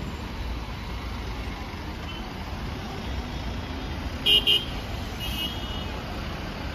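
Steady low traffic rumble from a jammed highway. About four seconds in a car horn gives two short toots, and a fainter horn sounds a moment later.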